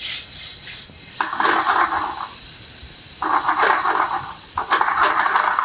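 Roasted mushrooms sizzling in hot olive oil and garlic in a sauté pan, a steady hiss with three louder surges of sizzle and scraping as they are stirred with tongs: about a second in, around three seconds in, and near the end.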